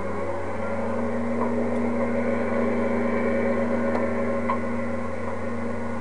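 Steady drone of a light aircraft's engine and propeller in flight, holding one pitch, which steps up a little about half a second in.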